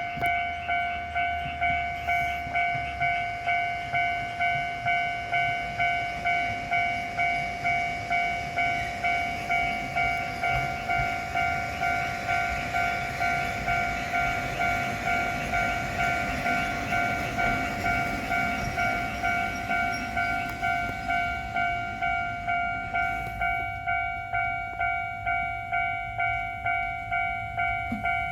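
Japanese level-crossing alarm ringing: an electronic bell tone repeating about one and a half times a second. A train's rumble swells and fades in the middle.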